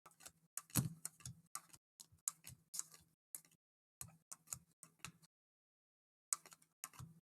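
Trading cards being handled and sorted on a table: an irregular run of light clicks and taps, a pause about five seconds in, then a few more.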